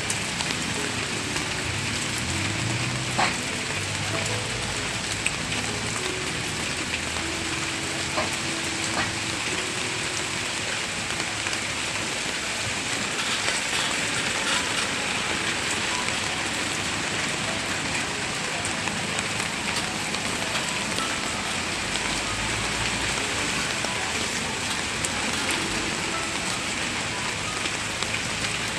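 Heavy rain pouring steadily, with a few sharp taps of drops hitting something hard, the loudest about three seconds in.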